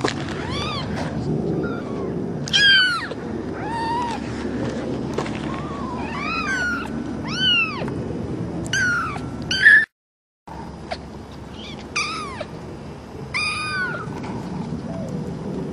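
Kittens about three weeks old mewing, with about a dozen short, high-pitched mews, each rising and falling.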